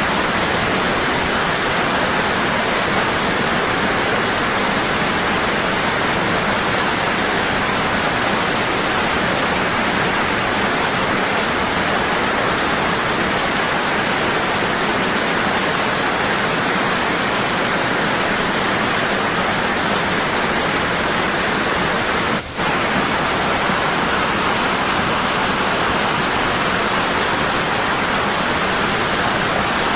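Waterfall: a strong, constant rush of falling water, with a momentary dip in level about two-thirds of the way through.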